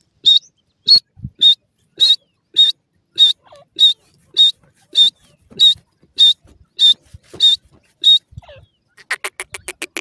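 Grey francolin calling: a string of fourteen sharp, high-pitched notes repeated evenly about every 0.6 seconds, then near the end a fast chattering run of about eight notes a second.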